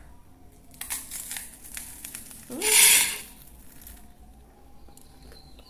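Crunching bites of crisp toast being chewed, a run of crackly crunches. About halfway through comes a brief, louder sound with a rising hum.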